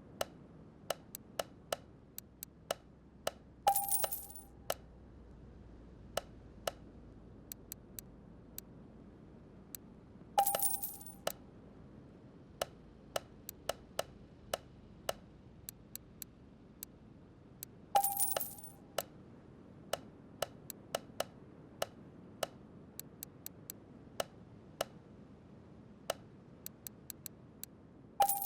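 Scattered sharp metallic clicks and ticks, with a louder ringing clink four times, each ringing on for about half a second to a second.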